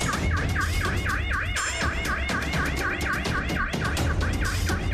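Police car siren in a fast yelping sweep, rising and falling about four times a second over a low rumble.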